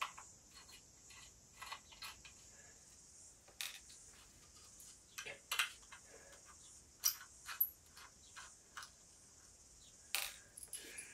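Irregular small clicks and taps of a screwdriver and tiny screws as a laptop SSD is unscrewed from its drive caddy, the screws set down one by one on a tabletop, over a steady faint hiss.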